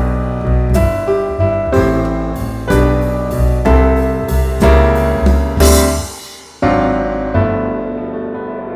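Background music: piano-led track with a steady rhythm of struck chords and a strong bass. It breaks off briefly about six seconds in, then one last chord rings and slowly fades.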